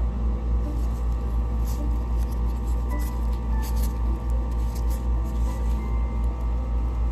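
Background music with a heavy, steady bass and held tones, and a few faint clicks from handling.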